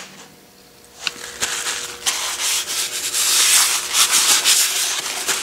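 A hand rubbing back and forth over the round steel swivel seat of an Atlas/Craftsman 12-inch lathe's cross slide, a steady dry hiss of skin on metal, as the seat is wiped before the compound rest goes on. A few light clicks come about a second in.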